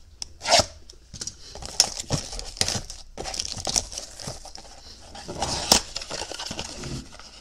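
Plastic shrink wrap being torn and crinkled off a cardboard trading-card blaster box, then the box flaps opened and foil card packs pulled out: an irregular run of crackles and rustles, loudest about half a second in and again near 6 s.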